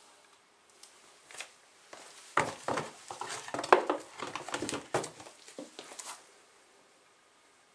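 Rustling and a quick, irregular run of light knocks and clatters from things being handled while the washing machine is loaded. It starts about two and a half seconds in and stops near six seconds, with the sharpest knock near the middle.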